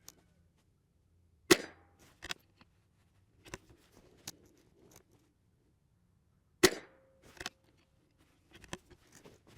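Two sharp .22LR rifle shots from a CZ 457 Varmint MTR bolt-action rifle, about five seconds apart. After each shot come quieter clicks of the bolt being worked.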